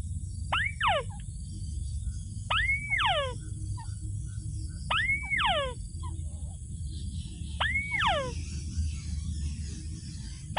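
A rail calling four times, about every two and a half seconds: each call a short squawk that rises quickly and then slides steeply down in pitch. A low steady rumble runs underneath.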